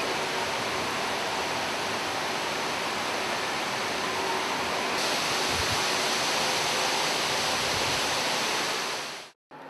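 Steady rush of water falling from a large artificial indoor waterfall, which cuts off suddenly near the end.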